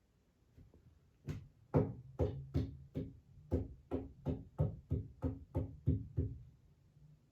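A quick series of knocks on something hard, about three a second, starting about a second in and stopping about a second before the end.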